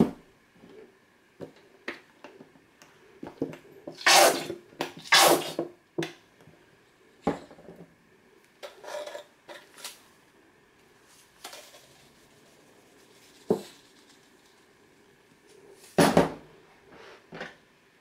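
Seasoning shakers being handled and shaken over a mixing bowl of chicken salad. Two loud rattling shakes come about four and five seconds in and another near the end, with scattered light clicks of containers and a spoon in between.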